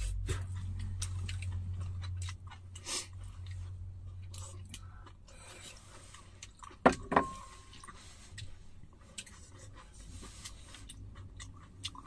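Two people eating from porcelain bowls with chopsticks: chewing, with scattered light clicks of chopsticks against the bowls. About seven seconds in come two louder clinks, one with a short ring. A low steady hum stops a couple of seconds in.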